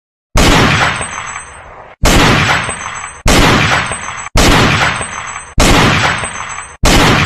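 Six loud, sudden crashing hits about a second apart, each fading away before the next: gunshot-like impact sound effects.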